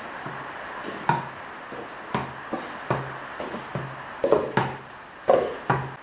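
Small wooden drawers being slid into a wooden chest of drawers and knocking home, a run of about a dozen sharp wooden knocks, each with a brief low ring, loudest near the end.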